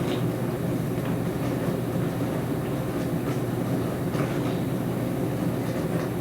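Dishwasher running, a steady low hum with a few faint ticks.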